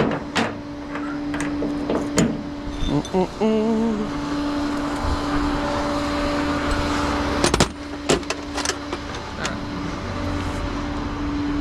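A vehicle idling with a steady hum, broken by several sharp clicks and knocks, the loudest about seven and a half seconds in.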